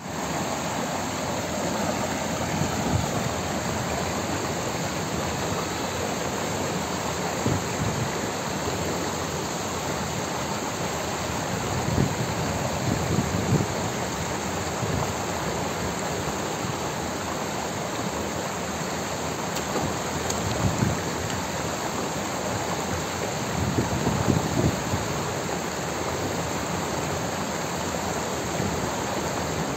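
Water rushing and splashing down a small stepped cascade into a foaming pool. It is a steady rush, with a few brief low rumbles.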